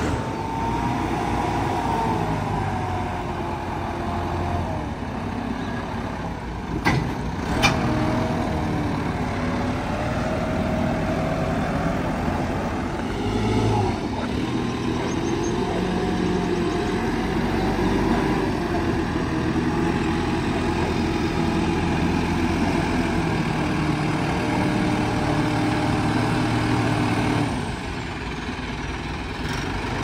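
New Holland TD5.90 tractor's diesel engine running steadily as it tows a trolley at low speed, with a wavering whine above the engine note. Two sharp knocks come about seven seconds in, and the sound drops a little quieter about two seconds before the end.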